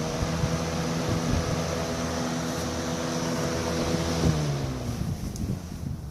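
Electric box fan running on high, a motor hum under the rush of air from the blades. About four seconds in a click is heard, then the hum falls in pitch and fades as the blades spin down.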